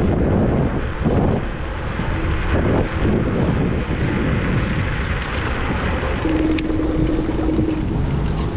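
Rumble of riding a Kaabo Mantis Pro SE electric scooter along a city street: steady road and tyre noise with air rushing past. Near the end a steady tone sounds for about a second and a half.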